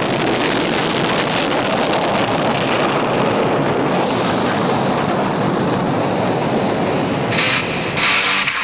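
A loud, steady rushing roar gives way, about seven seconds in, to an electric guitar riff starting up.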